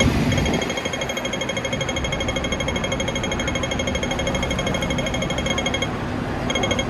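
Audible pedestrian crossing signal ticking rapidly, the fast clicking that marks the green walk phase, after a slow tick beforehand. It breaks off about six seconds in and starts again shortly before the end, over steady street noise.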